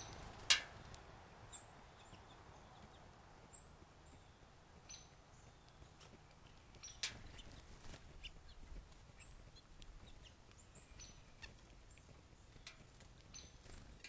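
Sharp taps and knocks of a house finch feeding at a wooden seed-feeder tray, the loudest about half a second in and another about seven seconds in, with fainter ticks between. Short, high chirps of small birds sound on and off throughout.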